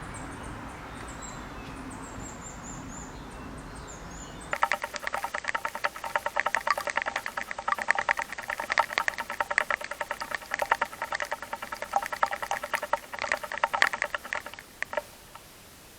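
A music tail fading out; then, about four and a half seconds in, a dense, rapid, irregular pattering starts and runs for about ten seconds before stopping suddenly near the end. It is typical of water spray from a rotating garden sprinkler falling on a hard surface.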